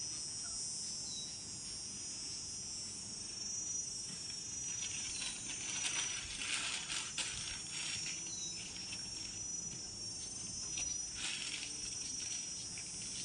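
Steady high-pitched insect chorus, with paper rustling in bursts around the middle and again near the end.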